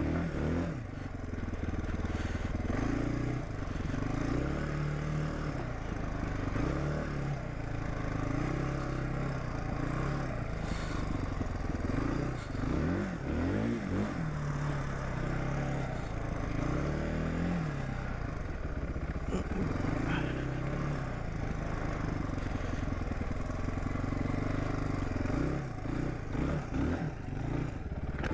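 1999 Suzuki DR350's single-cylinder four-stroke engine running under load as the bike is ridden, its pitch rising and falling again and again as it is revved up and shifted through the gears.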